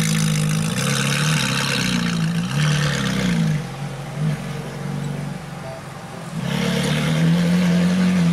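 Ferrari 458 Italia's V8 engine running and being revved. Its pitch rises and falls over the first few seconds, drops back quieter, then climbs again and holds steady near the end.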